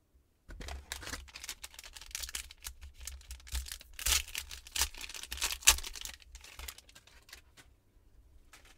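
Foil wrapper of a Finding Unicorn Marvel trading card pack being torn open and crinkled by hand: a rapid run of crackles and rips, loudest about four and five and a half seconds in, dying away near the end.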